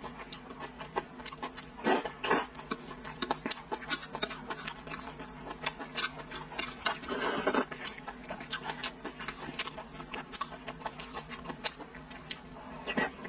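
Close-up eating sounds: wet chewing and lip-smacking on soft braised pork belly, with many small irregular smacks, a couple of louder ones about two seconds in, and a longer, noisier mouth sound around seven seconds in.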